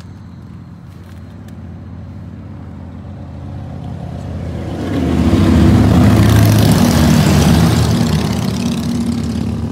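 A passing vehicle, rising to a peak about six seconds in and then slowly fading, over a steady low hum.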